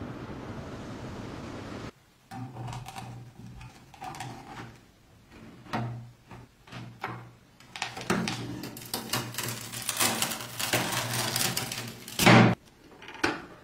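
Hand-cranked cast-iron bread slicer cutting a crusty loaf. Scattered knocks and rubbing as the loaf is handled against the blade are followed by a long stretch of crackling as the blade goes through the crust. The cut ends in one loud thump about twelve seconds in, then a lighter knock.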